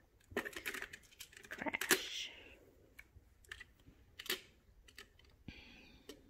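Magna-Tiles, plastic magnetic building tiles, clicking and clacking as they are handled and snapped into place, in scattered clusters of sharp clicks.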